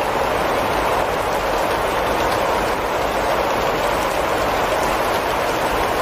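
Steady heavy rain falling on foliage: a dense, even hiss with a low rumble underneath.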